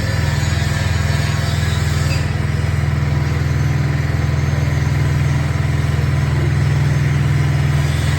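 Small Honda petrol engine running steadily, powering a coconut-milk press machine.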